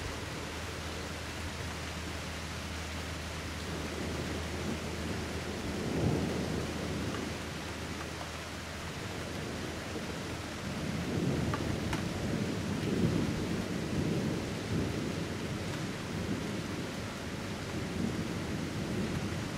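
Thunder rumbling in a thunderstorm: a short rumble about six seconds in and a longer rolling rumble from about eleven to fifteen seconds, over a steady hiss.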